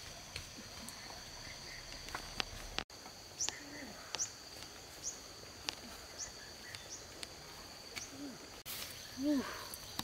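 Steady high-pitched insect chorus of crickets or cicadas, holding two even tones throughout. Scattered short high chirps and clicks cut across it, and a few brief low calls rise and fall near the middle and toward the end.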